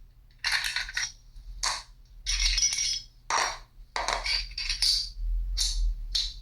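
Quick, irregular metallic clicks, clinks and rattles, typical of pistols being handled and worked by hand. Some come singly and some in short flurries, with a faint steady hum underneath.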